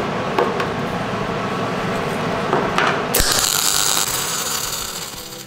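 A few clicks and knocks of handling, then about three seconds in a MIG welding arc strikes and crackles with a steady hiss.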